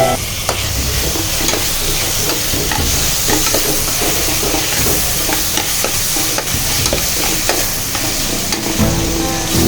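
Spicy chicken gravy sizzling in a pan as it is stirred: a steady frying hiss with frequent small scrapes and clicks of the stirring utensil against the pan.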